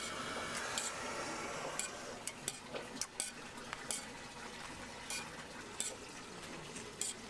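Food sizzling on a flat-top steel griddle, a steady hiss, with scattered sharp metal clicks as tongs and a spatula strike the griddle plate.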